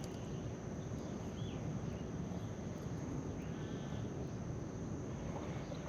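Outdoor ambience with a steady high insect chirring over a low rumbling background, and a faint short chirp about a second and a half in.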